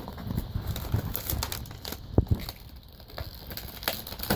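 Plastic toy packaging being handled: crinkling and scattered clicks, with a sharper knock about two seconds in.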